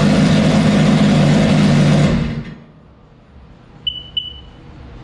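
Supercharged Rotax three-cylinder four-stroke engine from a Sea-Doo RXP 215, running really loud on its first test start, then shut off about two seconds in. A couple of seconds later the Sea-Doo's beeper speaker chirps twice.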